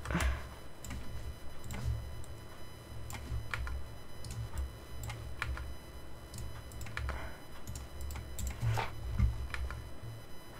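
Computer keyboard and mouse clicks: irregular short taps scattered through, a few a second, over a low steady hum.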